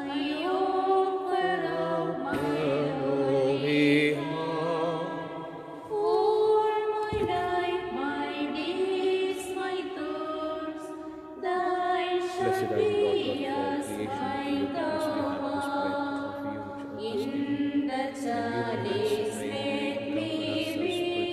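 Offertory hymn sung in held, wavering notes that change pitch phrase by phrase.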